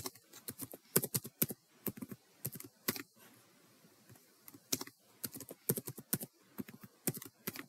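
Typing on a computer keyboard: two runs of quick keystrokes with a pause of about a second between them.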